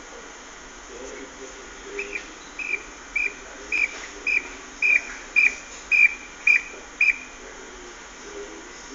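A run of about ten short, high, whistle-like chirps, roughly two a second, growing louder and then stopping suddenly.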